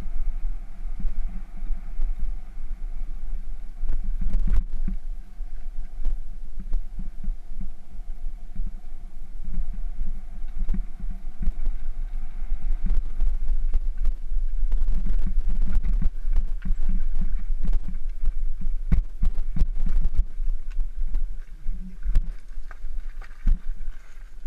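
Bicycle rolling over a rough gravel and stony trail: a steady low rumble with frequent knocks and rattles from the bumps, getting louder and bumpier about halfway through.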